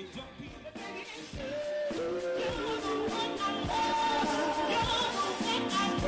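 Live band music with singing: long held vocal notes over a steady drum beat, growing louder about two seconds in.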